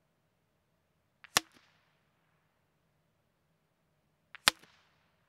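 Two shots from a suppressed Savage Mark II FV-SR .22 rimfire bolt-action rifle firing CCI standard-velocity ammunition, about three seconds apart. Each is a sharp crack with a faint click just before it.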